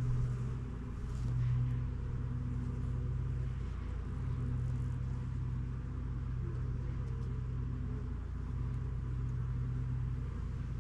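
Steady low hum of a mass of honeybees around an open hive, swelling and easing a little.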